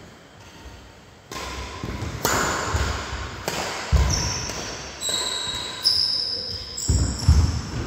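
Badminton rally: sharp racket strikes on the shuttlecock about once a second, with players' footsteps thudding on the wooden court floor and a few short, high shoe squeaks.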